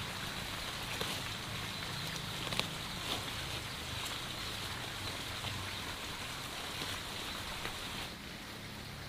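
A steady noisy background hiss with a faint low hum, broken by a few light clicks and taps.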